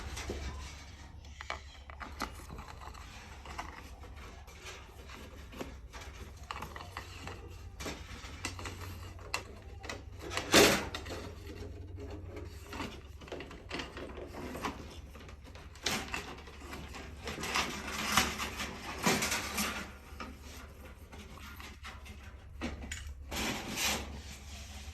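Handling noises of electrical cable and a wire snake (fish tape) being worked through a hole in the drywall: irregular rustling, light clicks and knocks, with several louder scraping swishes.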